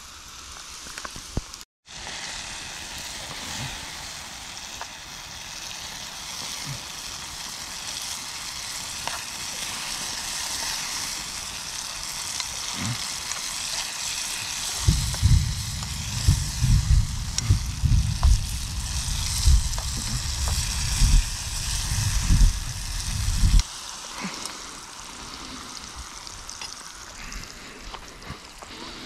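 Sliced mushrooms sizzling in a frying pan over a wood fire as they cook down and give up their water, with a spoon stirring them now and then. For several seconds in the middle, low rumbling thumps sound over the sizzle.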